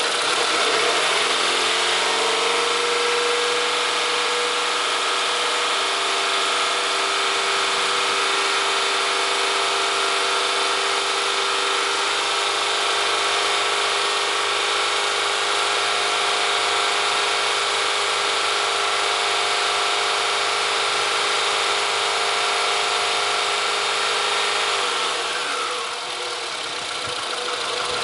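Car engine revving up from idle within the first second, holding a steady raised speed, then dropping back to idle a few seconds before the end. The engine speed is raised to check that the alternator's charging voltage climbs with it.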